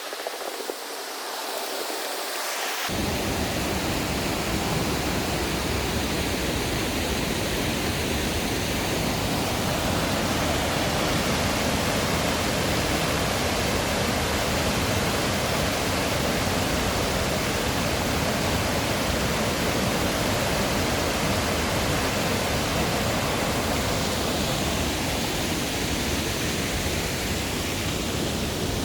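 Steady rush of falling, tumbling water in a mountain gorge stream. About three seconds in it suddenly fills out with a deep low rumble and grows louder, then holds steady.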